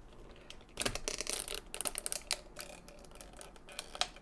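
Cardboard packaging being handled as the popcorn-topped lid is worked off a cardboard popcorn box: a dense run of small clicks, scrapes and rustles for about a second and a half, then a few scattered clicks and a sharper tap near the end.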